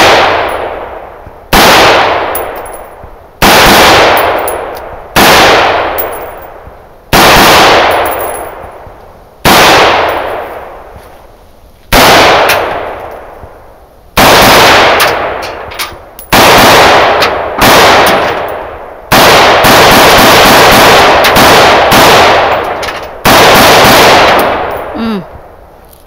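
AR-15 rifle firing a string of loud shots. Each report is followed by a long echoing decay. The shots come about every two seconds at first, then quicken into a rapid run of shots after about sixteen seconds.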